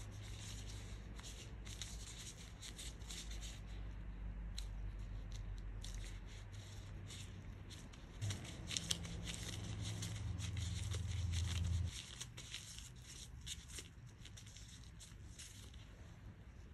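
Thin plastic disposable gloves crinkling and rustling in quick, irregular crackles as gloved hands press and roll dough into a ball. Underneath runs a low hum that swells in the middle and stops abruptly about two-thirds of the way through.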